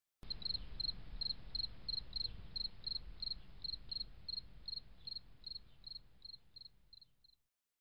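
Insect chirping in an even rhythm, about three short high chirps a second, over a faint low hum; the chirping fades out about a second before the end.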